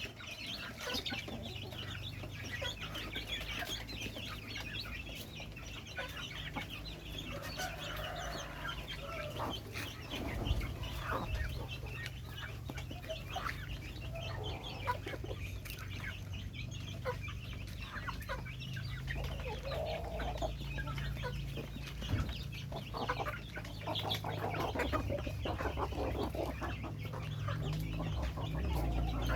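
Dong Tao chickens clucking, with many short, scattered calls throughout, over a low steady hum.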